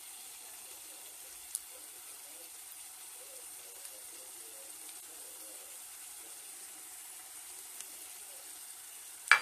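Faint steady sizzle of a tomato and purslane mixture simmering in a pan, with a few soft clicks and a sharp knock near the end.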